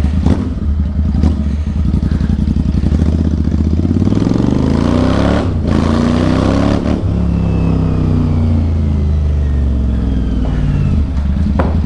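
Royal Enfield Interceptor 650 parallel-twin, bored out to 865 cc, running through a loud Atom full-system exhaust while being ridden. It holds a steady note, then accelerates with rising pitch and two short breaks in the sound about five and a half and seven seconds in, then winds down in pitch as the throttle comes off.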